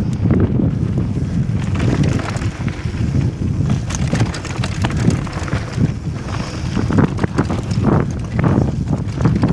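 Wind buffeting the microphone while a mountain bike descends a rocky trail at speed, with a steady rumble of tyres on gravel and many short knocks and rattles from the bike over stones.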